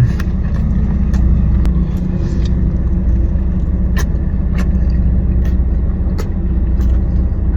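Steady low rumble of a car, heard from inside the cabin, with a few scattered sharp clicks.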